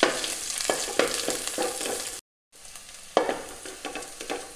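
Raisins frying in melted butter in a hot pan, sizzling, with a spoon scraping and stirring them every fraction of a second. The sound cuts out completely for a moment about halfway.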